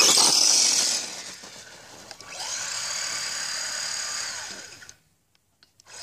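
Redcat Piranha RC truck accelerating hard on pavement: a loud hiss of tires spinning and scrabbling for the first second, then a high electric-motor whine that rises and holds for about two seconds before cutting off. The worn, bald slick tires are spinning with little grip.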